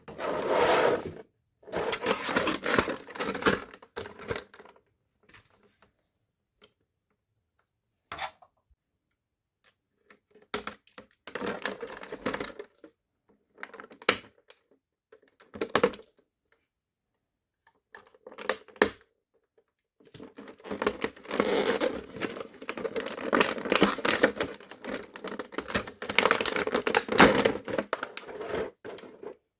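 Hands handling plastic toy parts and packaging: clattering, tapping and crinkling in bursts, with silent gaps between them and a long continuous stretch over the last third.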